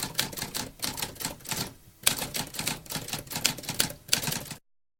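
Typewriter typing: a quick run of key strikes clacking several times a second, with a brief pause about two seconds in, stopping abruptly near the end.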